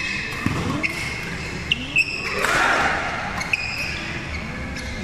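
Badminton rally on an indoor court: rackets hitting the shuttlecock, with short high squeaks from players' shoes on the court floor and spectators' voices. A short swell of crowd noise comes about halfway through.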